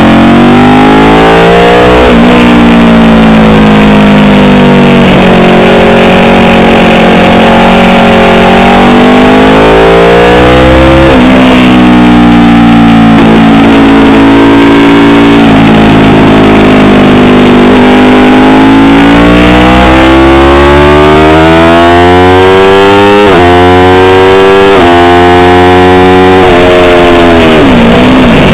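The Aprilia RSV4's V4 engine at speed on track, pitch climbing and falling with the throttle through the corners. Near the end it pulls hard through several quick upshifts, each a sharp drop in pitch, then the revs fall right at the end.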